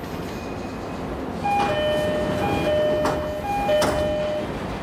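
E231 series train's door chime: a two-note high-then-low chime, played three times as the sliding passenger doors open. A few sharp clunks from the door gear come in among the notes.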